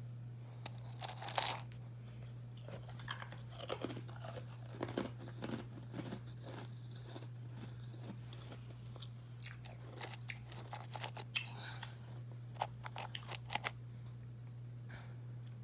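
Close-up biting and chewing of carbonated ice, with loud crisp crunches coming in several bursts of crackling over a steady low hum.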